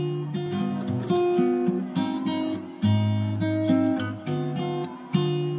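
Background music: acoustic guitar strumming and picking chords in a steady rhythm.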